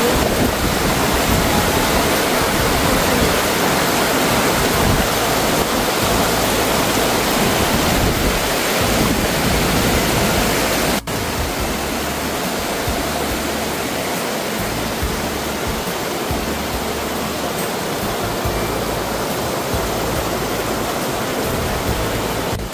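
Mountain stream water rushing steadily, an even hiss. About halfway through it breaks off abruptly and carries on a little quieter.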